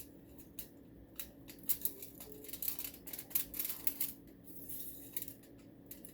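Scissors cutting through aluminum foil: a run of short, irregular snips, with a faint steady hum underneath.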